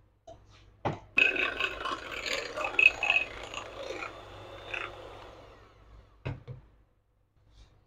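Electric hand mixer clicked on and running through cake batter in a glass bowl for about five seconds, its beaters rattling and scraping, then tailing off. A couple of clicks follow as it is switched off and set down.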